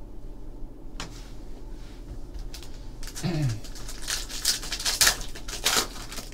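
Foil wrapper of a trading-card pack crinkling and tearing open, a dense crackle in the second half, after a single click about a second in.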